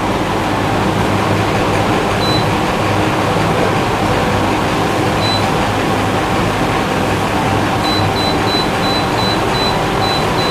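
Electric coffee grinder's control panel beeping as its timer is set: single short beeps about two and five seconds in, then a quick run of beeps near the end that runs into a held tone. A steady hum and hiss sits underneath throughout.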